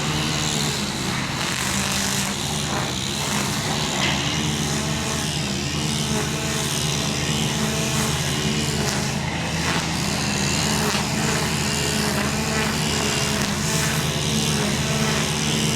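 Demolition excavator's diesel engine running steadily under load, with scattered faint clatters of debris.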